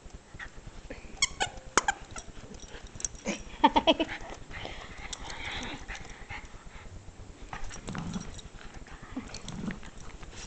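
Jack Russell terrier growling in short bouts while tugging on a plush toy, loudest about four seconds in.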